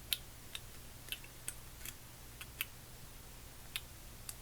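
Faint, light metal clicks, about nine of them at irregular intervals, as the head of a Craftsman 99964 3/8-inch drive ratchet is opened and its small parts are handled.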